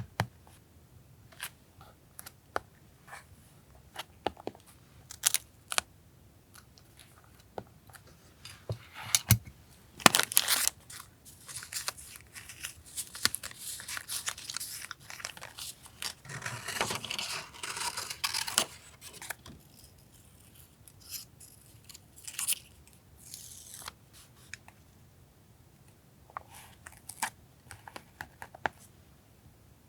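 Paper collage materials being handled on a desk: scattered light taps and crisp rustles. A dense run of paper rustling and rasping lasts from about ten to nineteen seconds in.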